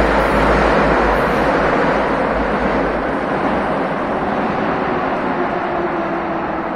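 Metro train pulling away from the station: a steady rumble of wheels and traction motors echoing along the platform, slowly fading as the train recedes.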